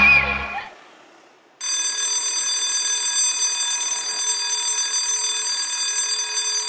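A sung children's tune ends in the first half second. About a second and a half in, a loud, steady shrill tone with many overtones starts abruptly, like an electronic alarm.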